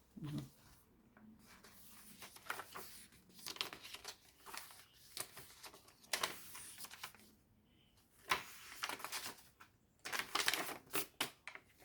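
Pages of a thick handmade junk journal being turned and handled: irregular papery rustles and flaps of coffee-dyed and book-page paper, with a quick cluster near the end.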